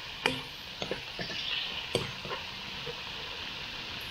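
Pork frying in a pan with ginger and garlic, sizzling steadily while it is stirred. A few sharp clicks of the utensil against the pan come in the first half.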